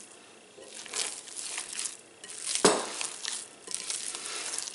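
Hands squeezing and kneading raw ground bison and ground sausage in a glass bowl: wet, squishy squelching in uneven bursts, with one sharp knock about halfway through.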